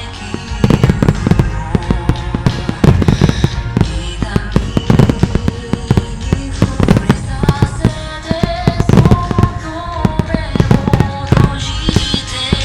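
Fireworks shells bursting in rapid, overlapping succession, sharp bangs and crackles, over loud accompanying music.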